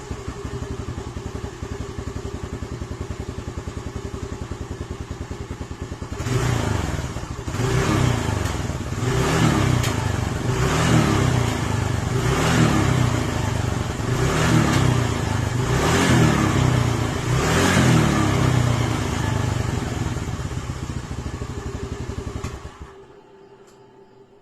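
Honda Navi scooter's small air-cooled single-cylinder four-stroke engine idling with a steady putter, then revved in repeated short blips about every one and a half to two seconds. It settles back to idle and is switched off about 23 seconds in.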